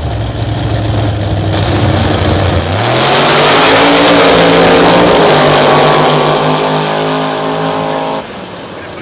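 Two Fox-body Ford Mustang drag cars sitting on the start line with their engines running at a steady low pitch, then launching together about three seconds in with a loud, rising engine note that holds and slowly fades as they pull away. The sound drops off suddenly near the end.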